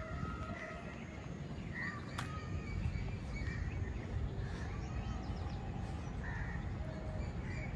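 Crows cawing several times, with other small birds chirping, over a steady low rumble.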